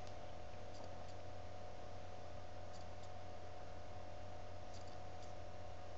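Steady low hum and hiss of the recording's background noise between narration lines, with a few faint short ticks scattered through it.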